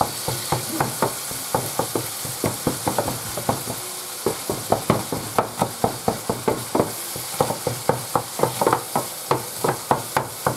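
Knife chopping yellow onion on a cutting board in quick, even strokes, about four a second, over the steady sizzle of minced beef frying in a pan.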